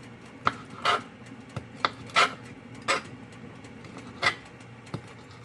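Knife cutting raw shrimp into pieces on a cutting board: about seven short knocks and scrapes of the blade, unevenly spaced.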